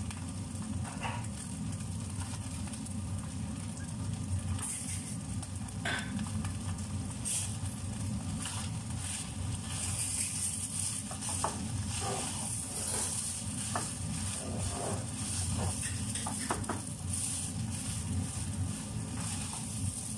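Food sizzling in a large pot on a gas burner, the hiss growing louder once the lid is lifted about halfway through. Light knocks follow as a wooden spatula stirs in the pot, over a steady low hum.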